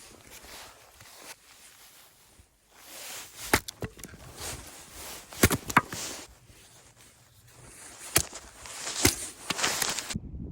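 Firewood being split for a campfire: about six sharp, irregular wooden knocks and cracks, with rustling and scraping of wood between the strikes.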